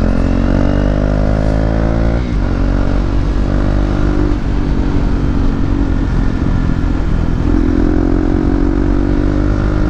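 KTM 390 Duke's single-cylinder engine under way. It accelerates with rising pitch, breaks off at an upshift about two seconds in, then runs on at road speed, climbing again near the end.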